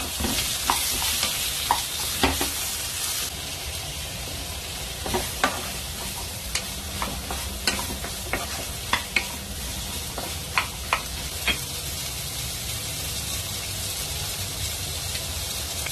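Red onion wedges sizzling in hot oil in a nonstick pan, stirred with a wooden spatula. The hiss is loudest in the first few seconds, and sharp taps of the spatula against the pan come scattered through the middle.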